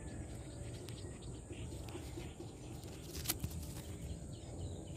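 Wind buffeting the microphone as a low, uneven rumble. A single sharp click sounds a little past three seconds in.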